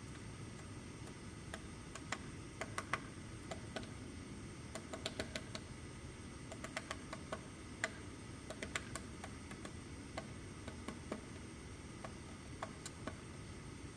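Woodpecker pecking at wood: sharp, irregular taps, singly and in short clusters of a few, with gaps between.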